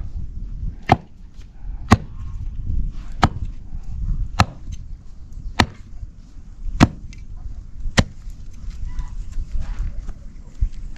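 An axe chopping down into the roots and packed dirt at the base of a big tree stump: about eight sharp strikes at a steady pace, roughly one every second and a bit.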